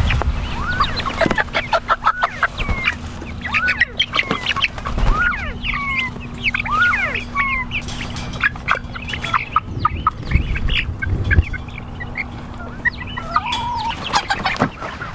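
A group of young Silkie chickens peeping and clucking, many short high chirps that slide up or down in pitch, over scattered knocks and rattles.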